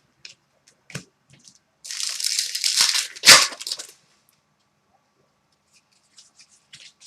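Trading cards and pack wrapper being handled: a crinkling rustle for about two seconds with a sharp snap near its end, then, after a pause, a quick run of light ticks as cards are flipped through.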